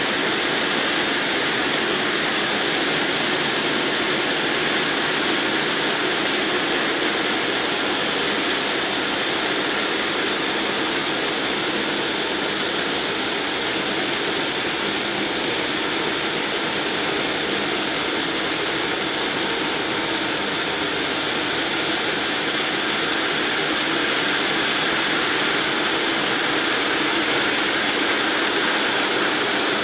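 Multi-blade block cutter's water-cooled circular saw blades cutting through a stone block: a steady, loud grinding hiss of blades and water spray that runs on without change.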